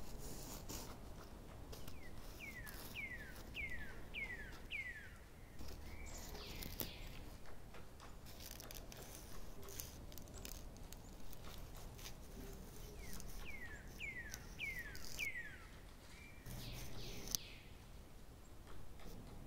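A bird calling: a run of five quick falling whistles, heard about two seconds in and again about ten seconds later, over faint clicking and hiss.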